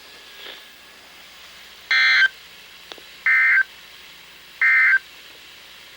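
Three short bursts of warbling two-tone digital data from a NOAA Weather Radio broadcast, evenly spaced about a second and a half apart. These are the SAME alert-code bursts whose short length marks the end-of-message code that closes the required weekly test.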